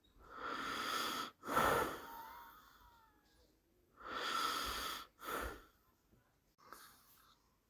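Snoring, presented as Santa snoring: two rounds of wheezy breaths, each a long breath followed by a shorter one, with a faint whistle between them and a weaker breath near the end.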